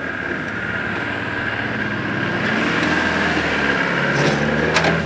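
A Land Rover's engine running as it drives slowly over a dirt off-road course, with a steady high whine throughout. The engine note comes through stronger in the last second or so, and a sharp click sounds near the end.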